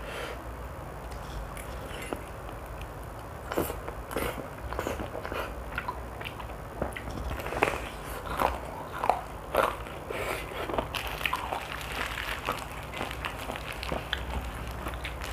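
A person biting and chewing crispy fried chicken close to the microphone. Wet mouth clicks and smacks come in irregular bursts, thickest from about four to eleven seconds in.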